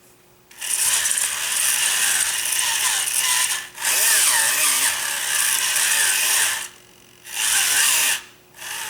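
Small electric motors and gearboxes of an RC-converted toy bulldozer running in bursts of a few seconds, with a wavering whine, stopping briefly about halfway through and again near the end as each channel's direction is tested before reversing it.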